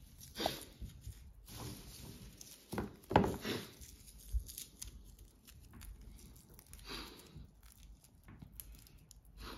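Dry, papery husks and withered leaves of a saffron corm being peeled and torn apart by hand: irregular soft rustling and tearing, loudest about three seconds in.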